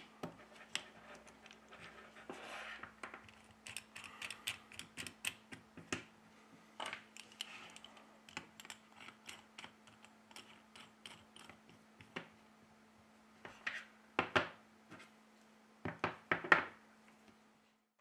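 Light clicks, taps and knocks of metal screen clamps being handled, slid off a phone and set down on a desk, with a few louder knocks near the end, over a faint steady hum.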